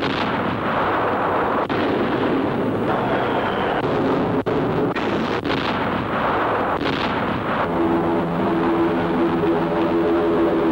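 Dubbed newsreel battle sound of bomb explosions: a dense, continuous rumble broken by a few brief gaps. About eight seconds in it gives way to the steady drone of aircraft engines.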